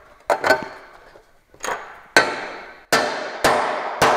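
Hammer blows on a steel dimple die punch, pressing countersink dimples into sheet metal at the screw holes. A quick pair of clinks comes first, then four hard strikes about half a second to three-quarters of a second apart, each one ringing on.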